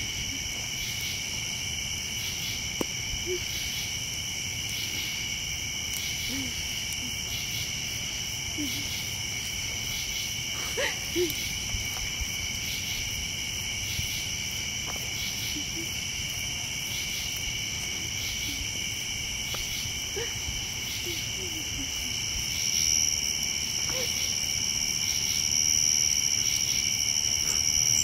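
Night insect chorus: crickets and katydids trilling steadily at several high pitches, with a rhythmic pulsing call about twice a second, growing louder near the end.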